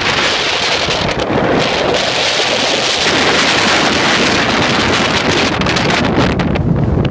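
Gale-force wind of 40–55 mph buffeting the microphone, a loud continuous rushing that gets gustier near the end, over heavy storm surf breaking on rocks.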